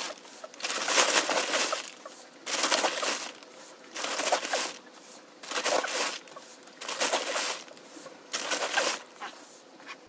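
Black oats being poured into a horse feeder's storage box in about six short pours, each a brief rush of rattling grain, roughly one every second and a half.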